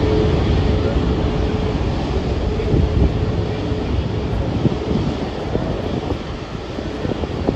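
Jet airliner arriving to land, its engine noise slowly fading as it passes, with a steady tone that dies away about halfway through.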